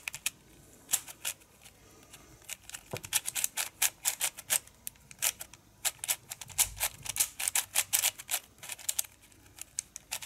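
YJ MGC 4x4 magnetic speedcube being turned by hand: rapid runs of plastic clicking and clacking as its layers snap round, with a short lull about two seconds in. The cube is new and not yet lubricated.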